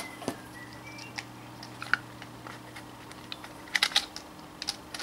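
Scattered light clicks and taps of small parts being handled as a stepper-motor driver is put back together, with a quick run of several clicks about four seconds in. A faint steady hum runs underneath.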